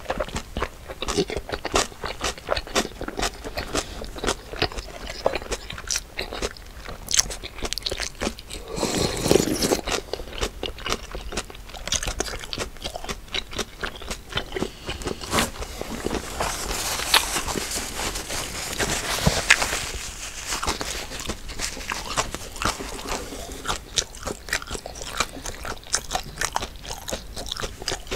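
Close-miked eating: a run of crunchy bites and chewing, many short crisp clicks, with a couple of longer noisy stretches, one about nine seconds in and a longer one about sixteen seconds in.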